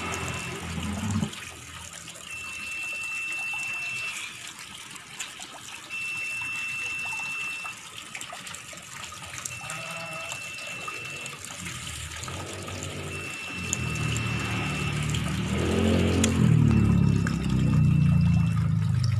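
Water running from a tap into a full plastic tub and splashing steadily. A thin high tone repeats about every three seconds, and a louder low rumble builds over the last few seconds.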